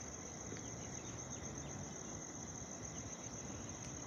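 A steady, high-pitched chorus of crickets chirring unbroken, over a faint low rumble.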